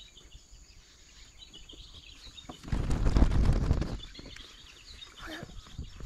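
Small birds chirping and twittering repeatedly, with a louder low rumble for about a second near the middle.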